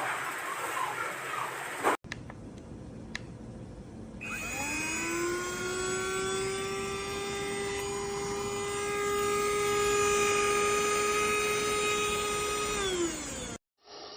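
A small electric vacuum motor switches on about four seconds in, spins up with a rising whine and runs at a steady high pitch. Near the end it winds down with a falling pitch. Before it there is a stretch of rushing noise, then a single click.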